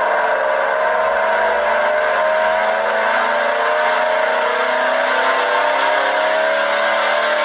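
Emergency warning siren sounding at a steady loudness, several tones together slowly rising in pitch.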